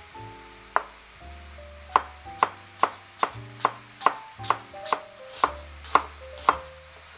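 Kitchen knife cutting through a half onion and striking the cutting board, about a dozen crisp chops at two to three a second, starting a little under a second in. Soft background music with held notes plays underneath.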